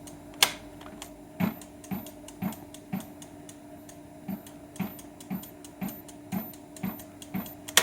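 Bafang e-bike motor running under throttle with a steady whine and a regular sharp click about twice a second, briefly pausing midway: the abnormal noise the owner links to the motor lacking power and not holding.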